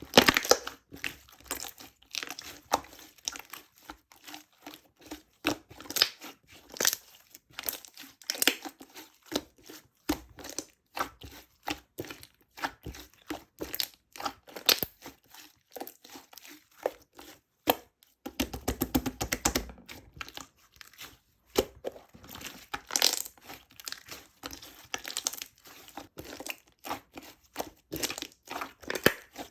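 Irregular crackling and crinkling clicks from something being handled close up, with a denser, fuller stretch about eighteen seconds in.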